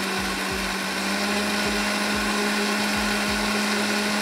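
Electric kitchen blender running steadily, blending a liquid popover batter, with a constant whirring hum.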